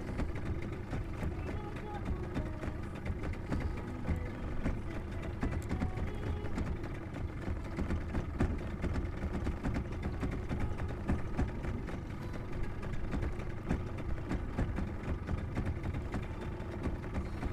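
Spinning reel cranked steadily to wind in line, a continuous mechanical whirring with many fine ticks over a low rumble.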